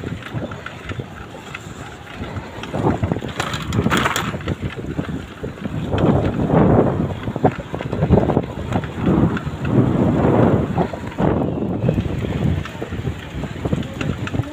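Wind buffeting the microphone of a camera carried on a moving bicycle, a low uneven rumble in gusts that grow stronger about six seconds in.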